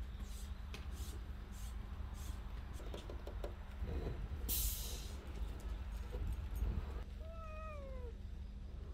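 A cat meows once about seven seconds in, a short call falling in pitch, over a steady low background rumble; a brief hiss sounds near the middle.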